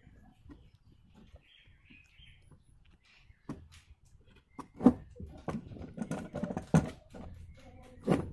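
Workbench handling noises: after about three quiet seconds, a run of sharp clicks and knocks, about six, irregularly spaced, as tools and the circuit board are handled.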